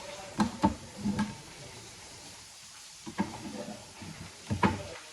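Kitchen knife knocking on a cutting board while fruit is cut: a few sharp knocks in small groups, with a pause in the middle.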